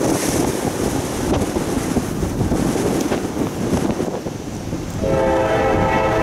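Wind rushing on the microphone, then about five seconds in a locomotive's Nathan K5LA air horn sounds, a steady multi-note chord.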